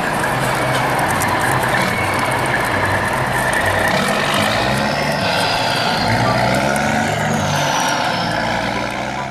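A steady engine drone: a low, unevenly pulsing hum with a faint whine slowly gliding up and down above it, which cuts off abruptly at the end.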